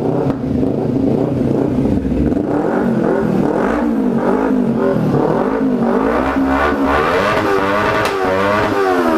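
Kawasaki Ninja 300's parallel-twin engine revved in a series of throttle blips, pitch rising and falling, with the highest rev near the end, through a Jeskap full 2-into-1 exhaust with GP tip and the dB killer removed. Without the dB killer the exhaust note is deeper and thicker.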